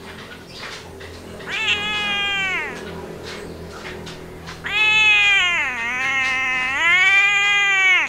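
Domestic tabby-and-white cat meowing twice: a short call falling in pitch about a second and a half in, then a long drawn-out meow from about halfway that dips and rises again before breaking off sharply near the end.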